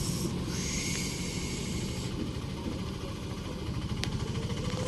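A vehicle's engine running with a steady low hum. A wash of hiss passes over it in the first two seconds, and there is a single click about four seconds in.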